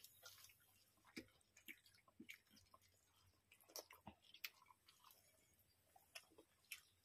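Faint, irregular chewing and lip smacks of people eating soft rice and okra curry by hand.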